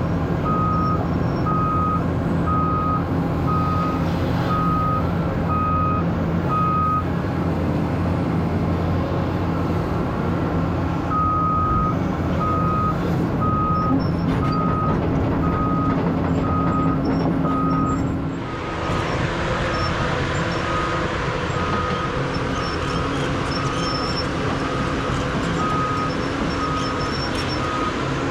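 Cat 320E excavator's diesel engine running steadily, with a backup or travel alarm beeping about once a second. The beeping stops for a few seconds and then resumes. A little past halfway the machine's sound turns into a brighter rushing noise, and the beeps carry on more faintly.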